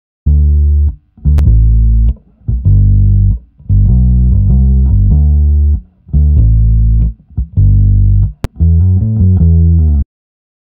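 Bass guitar playing a riff of held low notes in short phrases with brief gaps, heard dry, without the compressor applied. Two sharp clicks cut through it, about a second in and again near the end.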